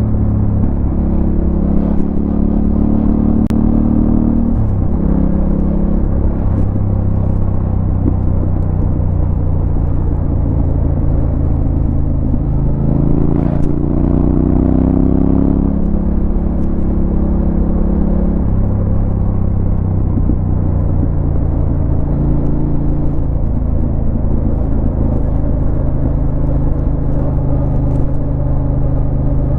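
Yamaha Ténéré 700's parallel-twin engine running under way. The pitch drops about four seconds in, rises for a couple of seconds around the middle as the throttle opens, then settles back.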